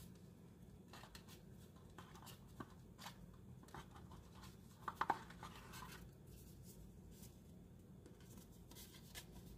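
Faint handling of Pokémon trading cards: light rustles and ticks of card stock sliding and tapping against other cards, with a brief louder scrape about five seconds in.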